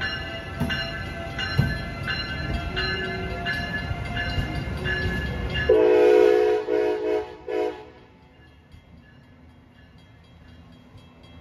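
An Amtrak passenger train rumbling past close by, with a rhythmic clatter from its wheels, then a loud train horn blast for about two seconds with a couple of short breaks, after which the train noise falls much quieter.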